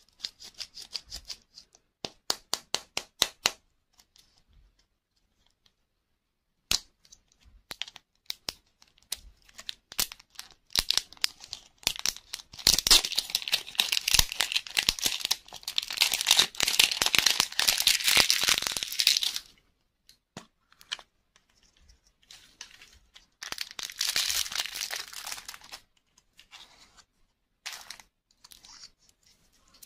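Thin printed plastic shrink-wrap being peeled and torn off a lollipop toy egg, crinkling and crackling in one long stretch and then a shorter one. Before that, a quick run of about eight light clicks and scattered small ticks from fingers handling the plastic.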